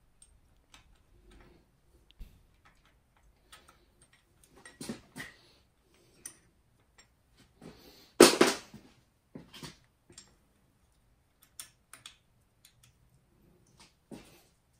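Scattered small metallic clicks and taps of hand tools and fasteners while a metal bracket is unbolted from over the middle coil pack of a Triumph Street Triple's engine, with one louder clatter about eight seconds in.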